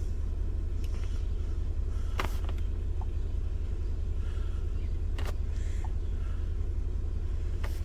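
2001 VW Beetle 1.8 turbo engine idling with a steady low rumble, with a few faint clicks about two, five and seven and a half seconds in.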